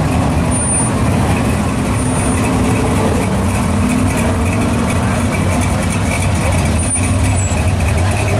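Chevrolet El Camino SS's V8 running steadily at low speed as the car rolls slowly by, a deep, even exhaust sound with no revving.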